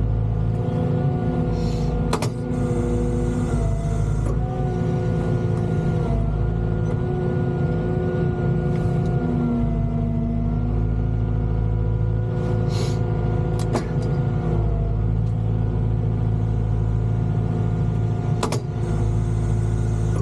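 Volvo EWR150E wheeled excavator's diesel engine running steadily under load, with a whining tone that dips and rises slightly as the machine works, and a few sharp knocks.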